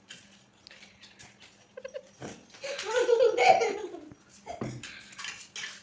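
Laughter: a burst of giggling about halfway through, with a few short clicks around it.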